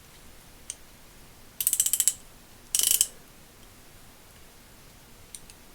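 Vintage Powr-Kraft (Wright-made) 3/8-drive ratchet being worked by hand: its pawl clicks rapidly over the gear teeth. There is a short run of fast clicks about a second and a half in and a shorter run about a second later, with a few faint single ticks around them.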